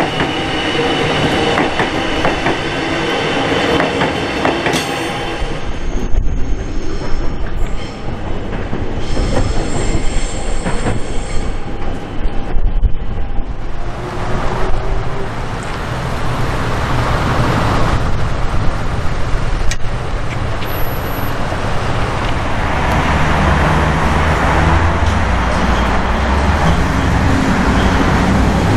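Metro Trains Melbourne electric suburban train running past, its wheels clattering over the track. Sharp clicks and knocks come through the middle, and a low steady rumble takes over near the end.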